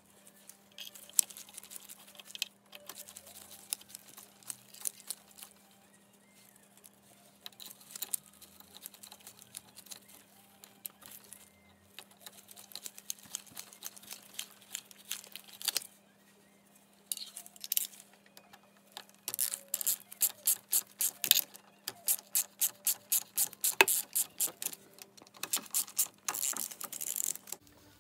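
Ratchet wrench clicking in a quick, regular run, about three to four clicks a second, as it drives in the bolts of an engine-cover flange. Before it come scattered metallic clicks and taps of bolts and tools being handled.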